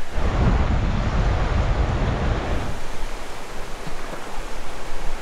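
Steady rushing of a mountain creek, with wind buffeting the microphone for the first two to three seconds.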